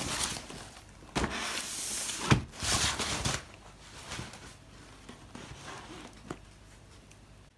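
Shipping packaging being unwrapped by hand: rustling with a few knocks, a sharp one about two seconds in, then quieter handling with faint clicks.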